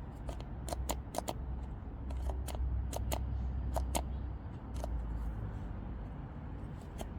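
Irregular sharp plastic clicks and taps as a new cartridge oil filter is pushed onto its plastic filter housing and the parts are handled, over a steady low rumble.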